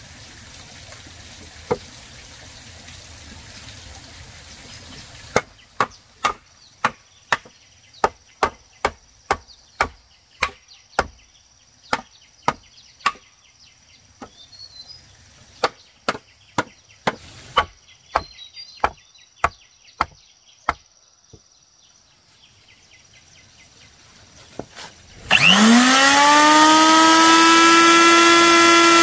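Wood being chopped with a blade: about two sharp strokes a second for some fifteen seconds, with a short break in the middle. Near the end an electric power tool starts up, much louder, its whine rising in pitch and then holding steady.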